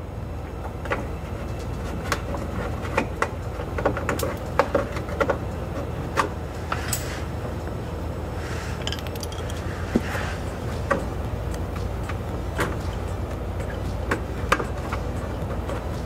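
Irregular light clicks and knocks of plastic push-pin clips being worked loose by hand from a minivan's underbody plastic cover, with a brief scrape about halfway through, over a steady low hum.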